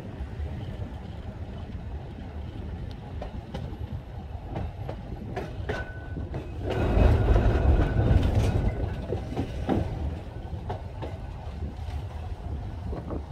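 Blackpool heritage double-decker tram running along its track: a steady rumble with scattered clicks from the wheels, and wind buffeting the smartphone microphone. It gets louder for a couple of seconds about seven seconds in.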